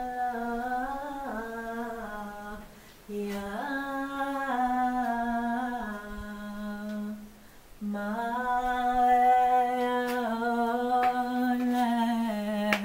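A woman humming a slow, wordless melody on long held notes, in three phrases broken by short pauses about three and seven and a half seconds in.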